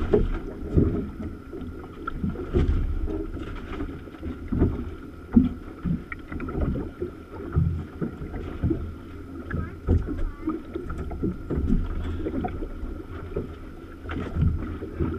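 Water slapping against the hull of a small boat drifting at sea, heard as irregular low thumps and knocks, several a second.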